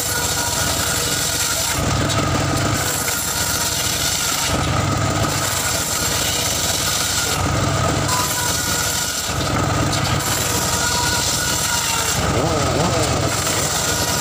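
Homemade circular sawmill's large blade cutting through a log, with the machine running loud and steady. Underneath, a deep rumble swells about every two and a half seconds.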